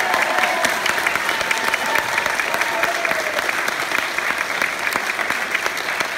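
Audience applauding steadily, a dense patter of many hands clapping, with a few voices calling out over it in the first half.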